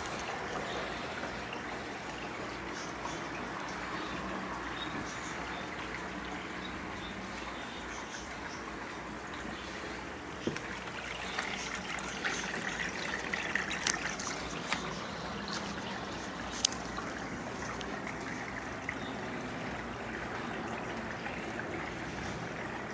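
Aquarium water circulating and trickling steadily, stirred by a wave maker pump running, with a few sharp clicks near the middle.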